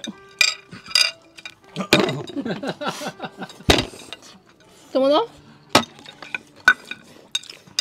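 Chopsticks clicking and scraping against a ceramic plate while eating noodles, a run of short clinks with one sharper knock midway.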